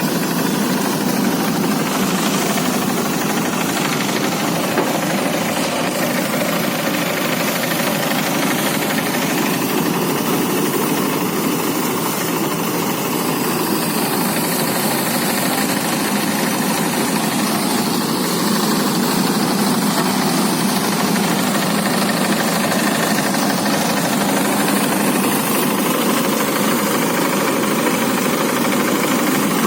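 Motorized rice thresher running steadily, its small engine and spinning threshing drum making a continuous mechanical noise as rice is threshed.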